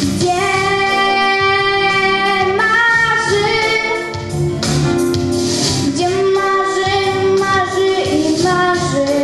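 A young girl singing into a microphone, holding long notes over backing music with light percussion.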